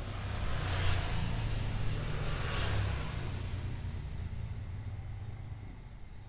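A passing road vehicle: a low engine rumble with tyre hiss that swells about a second in and fades away near the end.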